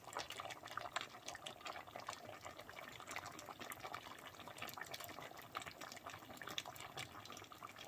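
Lamb stew simmering gently in the pot on residual heat after the burner is switched off: faint, irregular little pops and bubbling.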